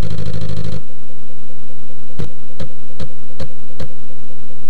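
Apple II floppy disk drive loading a program: a loud, buzzing rattle of the drive head stepping for about the first second, then the steady hum of the spinning drive with five sharp head-step clicks, about two and a half a second.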